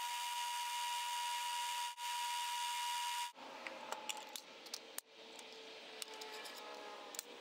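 Metal lathe running while a center drill in the tailstock chuck cuts into the end of a steel workpiece, with a steady high whine. About three seconds in this gives way to a quieter stretch of sharp clinks as steel drill bits are handled in a metal drill index box.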